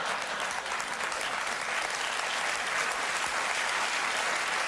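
Studio audience applauding steadily, an applause break after a joke.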